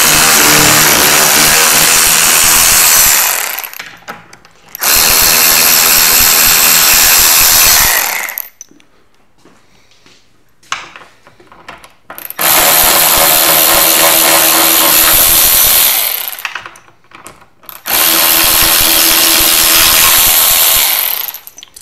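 Electric ratchet running in four bursts of about three to four seconds each, with short pauses between them, as it backs out the shipping bolts left in a pinball machine cabinet.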